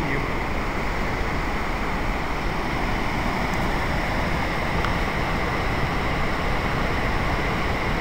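Waterfall rushing steadily over rock ledges, with wind rumbling on the microphone.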